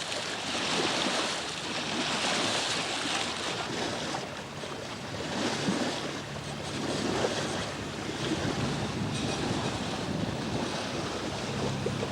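Wind buffeting the microphone over water rushing and splashing along a sailboat's hull under way, swelling and easing every few seconds. A faint steady low hum comes in about halfway through.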